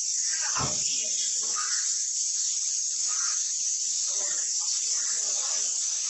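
Steady high-pitched hiss, with faint scattered background sounds underneath and a brief low thump about half a second in.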